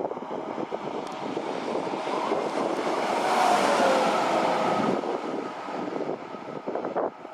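A train passing through the station. Its noise builds to a peak about three and a half seconds in and then fades, with a tone that falls in pitch as it goes by and a rapid clatter of wheels running over rail joints.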